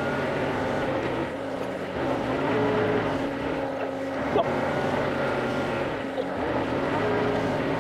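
Compact diesel tractor engine running under light load as it drags a rear rake over loose soil, its pitch rising and falling a little as it works. One brief sharp knock a little past the middle.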